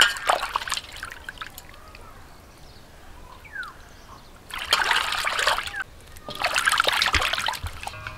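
Water splashing and dribbling in a steel basin as hands rinse pieces of cut fish. It comes in three bouts: a short splash at the start, then longer splashing about four and a half seconds in and again about six seconds in.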